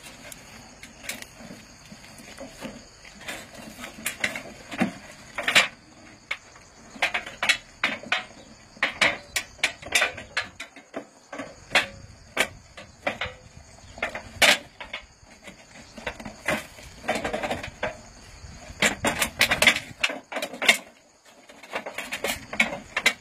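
Irregular knocks, clicks and scrapes of a plastic jerrycan trap and a galvanized metal sheet vane being handled and fitted together, over a steady high-pitched insect chorus.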